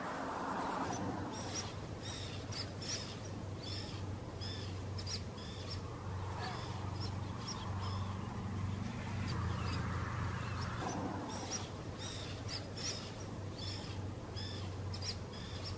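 Wild birds calling in short, high chirps, about two a second, over a steady low hum.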